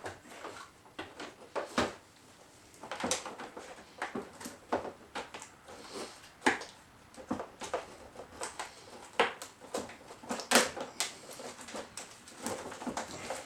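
Irregular clicks and light knocks of small plastic and metal pressure-washer parts and tools being handled and fitted together on a work surface.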